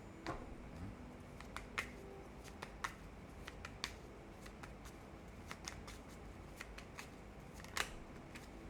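Tarot cards being shuffled and handled: irregular sharp card snaps and clicks, the loudest near the end.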